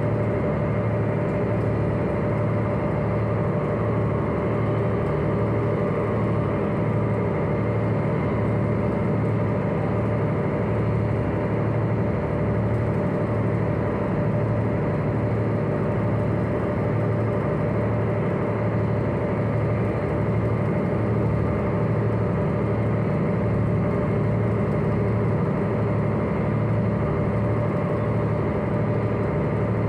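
The pirate ship Victory's engines running steadily, heard from aboard: a constant low hum that holds the same pitch and level throughout.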